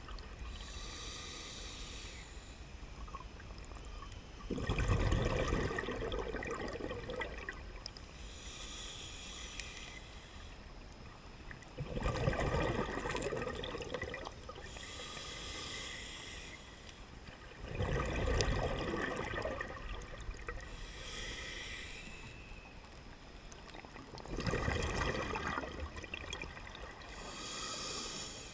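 Scuba diver breathing underwater through a regulator: a short hissing inhale, then a longer bubbling rush of exhaled air. The cycle repeats about every six seconds, with four exhales.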